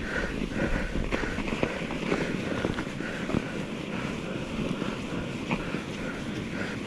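Mountain bike riding over snow: tyres crunching and the bike knocking over bumps, with wind on the microphone and a soft swishing sound repeating two to three times a second.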